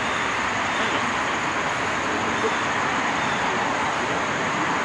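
Steady rushing outdoor background noise, very even in level, with a thin, high, steady tone running above it.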